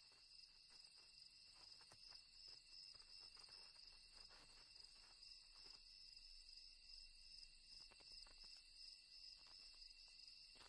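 Faint, steady chorus of night crickets: a continuous high-pitched tone with no breaks.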